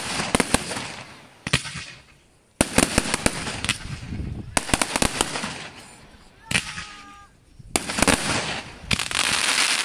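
Fireworks display: aerial shells bursting in a series of sharp bangs, one every second or two, each fading away, with a brief whistle about two-thirds of the way through and dense crackling near the end.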